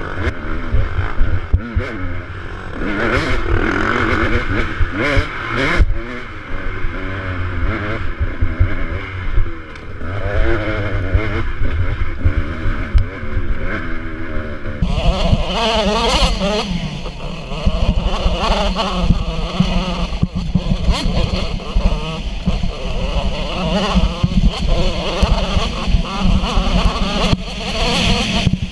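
KTM 200 XC-W two-stroke dirt bike engine running under load, its pitch rising and falling as the throttle is worked over rough trail, with a heavy low rumble of wind on the helmet microphone. The sound changes abruptly about halfway through, at a cut to another stretch of riding.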